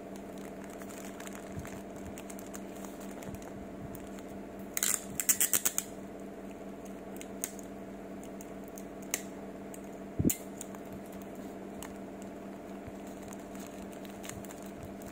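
Paper sandwich wrapper crinkling as it is folded and pressed around a sandwich: a short burst of rapid crackles about five seconds in, then a couple of single sharp clicks later on. A steady low hum runs underneath throughout.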